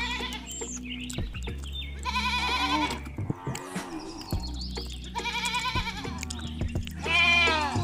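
About four quavering bleats from goats or sheep, one after another, over steady background music.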